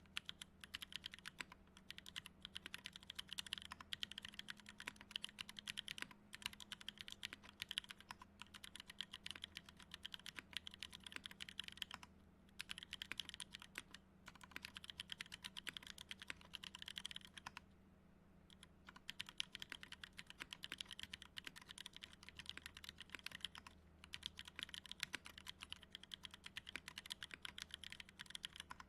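Fast typing on an Octagon V3 custom mechanical keyboard with lubed NovelKeys x Kailh Cream linear switches on an FR4 plate: a dense run of keystrokes with a few brief pauses and a longer one about two-thirds of the way through.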